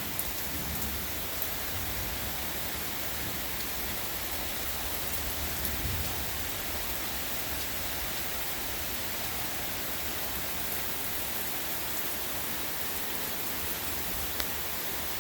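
Heavy rain pouring steadily in a windy storm: a constant, even hiss, with low rumbles of wind swelling about a second in and again around six seconds.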